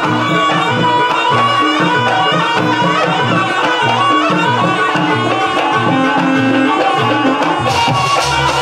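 Javanese traditional music for a jaranan dance: a fast, even pattern on hand drums (kendang) under many held, ringing melodic tones, with sharper, brighter strikes coming in near the end.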